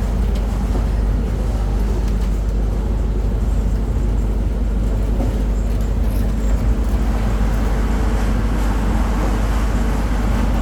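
Engine on a concrete-pouring site running steadily at a constant speed, with a hiss that grows a little stronger in the second half.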